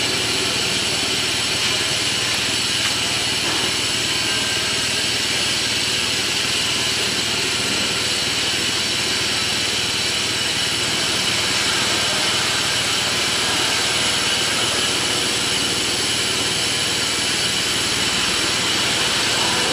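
1000 mm bubble film making machine running steadily: an even mechanical hum and hiss with several steady high-pitched whines over it.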